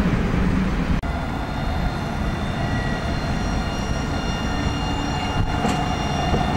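Alstom Citadis 302 tram running past close by: a low rumble with a steady high-pitched whine over it, starting after an abrupt break about a second in. Before the break there is a brief low rumble.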